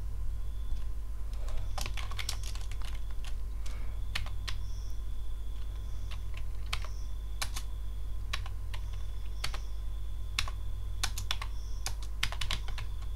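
Typing on a computer keyboard: irregular key clicks coming in quick clusters with short pauses, over a steady low hum.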